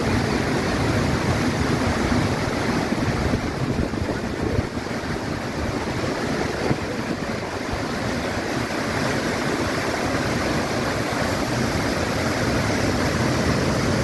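Bad Gastein waterfall, the Gasteiner Ache, pouring down a rocky mountain gorge: a loud, steady, even rush of falling water.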